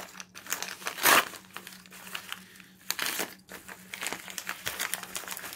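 Parcel packaging crinkling and crumpling as it is unwrapped by hand: irregular rustles and crackles, the loudest about a second in.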